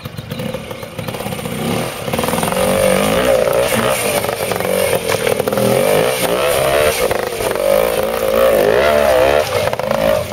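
Pre-65 trials motorcycle's single-cylinder engine pulling up over rocks in a streambed, its note rising and falling as the throttle is worked. It gets louder about two seconds in.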